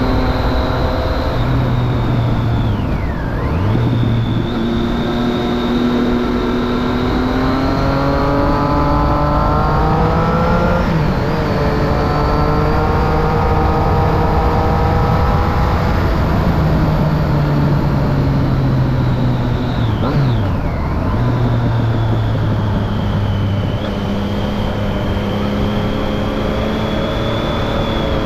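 Triumph Street Triple 675's three-cylinder engine running through a Remus Hypercone exhaust with its dB killer fitted. The revs climb steadily for several seconds and then drop suddenly near the middle. Twice the pitch dips sharply for a moment and recovers, and between these the engine runs at a fairly steady speed.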